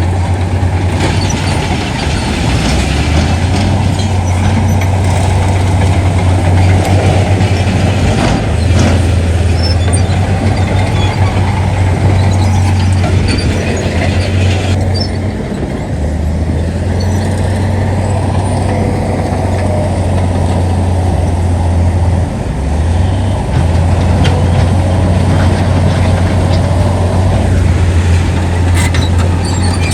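Heavy diesel earthmoving machinery running: a steady low engine rumble that eases briefly a couple of times, with occasional knocks.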